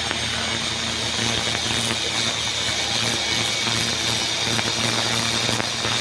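Handheld fiber laser welder firing along a steel sheet corner joint: a steady hiss with a few faint clicks, over the steady low hum of the welding machine.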